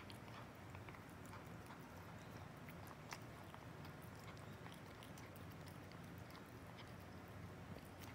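A domestic cat eating chunky food from a glass bowl: faint, quick, irregular wet smacking and chewing clicks.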